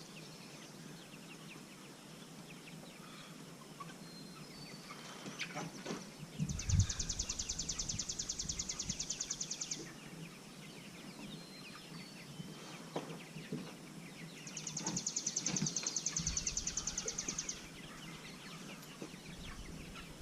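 A flock of meat chickens calling and clucking with many short chirps, joined twice by a rapid, high-pitched pulsing trill lasting a few seconds each time. A few low knocks come about six seconds in and again near the end.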